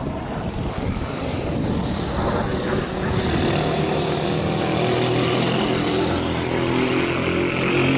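Jet aircraft engine, a steady rushing noise that grows louder from about three seconds in, with steady droning tones and a high whine building in.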